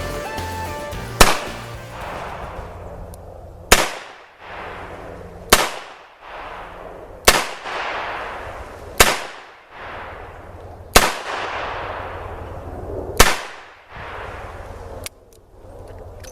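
Taurus Model 66 .357 Magnum revolver firing seven single shots, one every couple of seconds, emptying its seven-shot cylinder, each shot trailed by a fading echo. Background music fades out just before the first shot.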